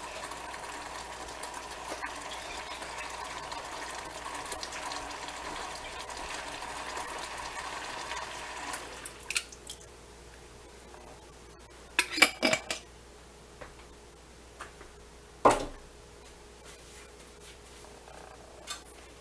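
Meat sauce in a pan on the stove cooking with a steady hiss for about nine seconds. Then it goes quieter, with a few sharp knocks and clinks as rinse water from a glass tomato sauce jar is emptied into the pan.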